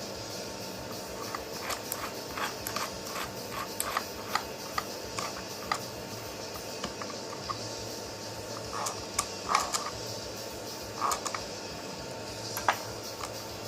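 A steady mechanical hum with irregular light clicks and taps of small-scale handwork: a run of them through the first half, then a few louder ones later.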